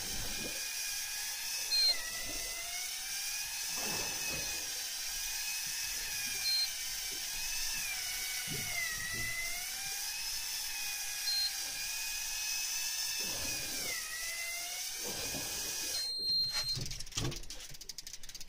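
Electric fishing reel's motor whining steadily as it winds in line, its pitch sagging and recovering a few times, with three short high beeps along the way. The whine stops about sixteen seconds in, followed by some handling clatter.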